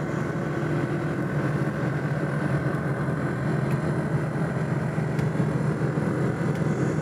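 1983 Volkswagen Jetta's engine running at a steady pitch while the car drives along, heard from inside the cabin together with road noise.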